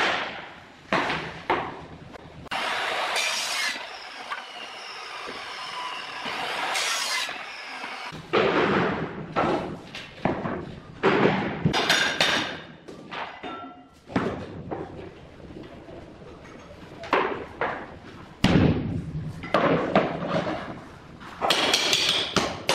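Click-lock wood-look floor planks being laid on foam underlay: a couple of short scraping passes as planks are slid and handled, then a run of irregular sharp knocks as the planks are snapped together and tapped into place along the wall.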